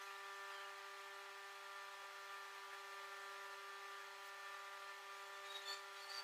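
Faint steady machine hum holding several fixed pitches without change, with a few small light clicks near the end.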